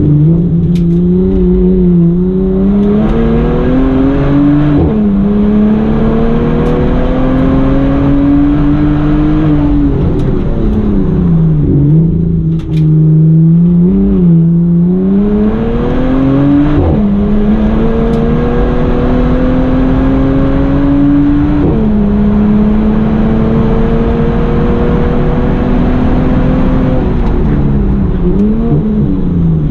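Bentley Continental GT engine under hard acceleration, its pitch climbing steadily through each gear and dropping suddenly at upshifts, about five seconds in, about seventeen seconds in and about twenty-two seconds in. In between, around ten to fifteen seconds in and again near the end, the revs fall away as the car slows for bends, with a few short blips as it downshifts.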